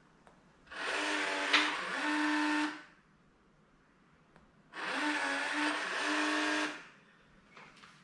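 Schlage Sense smart deadbolt's motor whirring twice, each run lasting about two seconds, as it drives the bolt on commands sent from the phone app.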